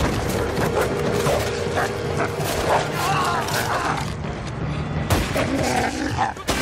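Horror-story sound effects of a wolf attack: a dense run of loud thuds and crashes over a steady tone in the first half, with a brief wavering shriek around the middle.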